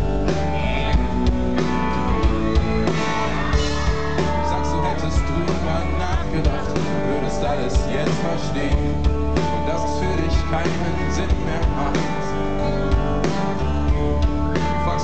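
Live rock band playing through the stage PA, with electric guitars, bass and a steady drum beat, in an instrumental stretch of the song.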